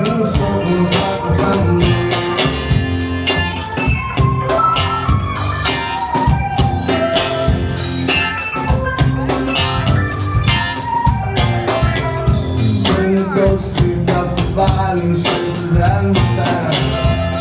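Rock band playing live, an instrumental stretch of a song with a steady drum beat and no words sung, recorded from the audience.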